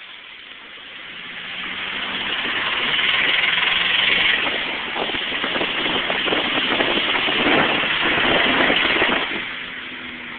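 Supercharged 2001 Chevrolet Cavalier engine running with a rapid, really bad lifter tick. It grows louder over the first few seconds and drops back about nine seconds in.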